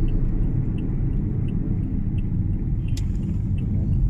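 Steady low rumble of road and engine noise inside a moving car's cabin, with a single sharp click about three seconds in.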